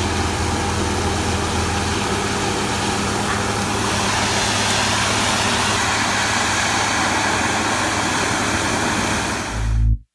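Water-well drilling rig blowing out its borehole with compressed air: a steady, loud rush of air, water and cuttings over a low engine hum. It cuts off suddenly near the end.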